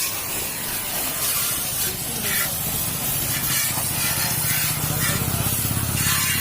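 Steady hissing spray from a pressurised jet. A low motor hum with a fast pulse comes in about halfway.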